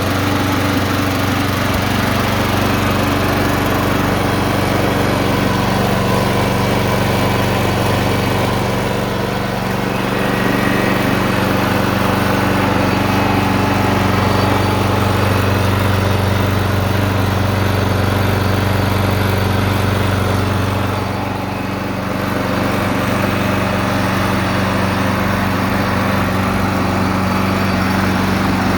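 Sabo 47-A lawnmower engine running steadily at economy speed, its level sagging briefly twice, about ten and about twenty-one seconds in.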